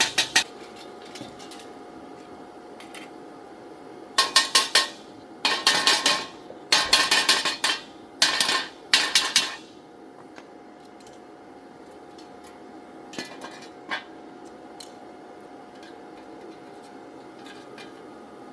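Metal clinking and rattling in about five quick bursts of sharp strikes between roughly four and ten seconds in, with a few scattered clicks before and after, over a steady faint hum.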